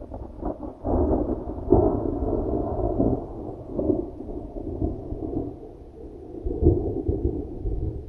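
Thunder rolling: a long, low rumble that swells about a second in and surges again twice, the loudest crack about a second and a half in and another near the end.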